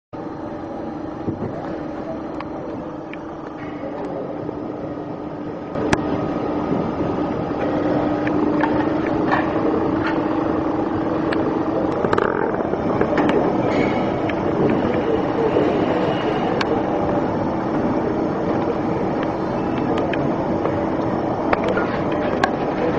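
Bicycle factory workshop noise: a steady machine hum under a continuous clatter, with scattered sharp clanks and knocks. It gets louder about six seconds in.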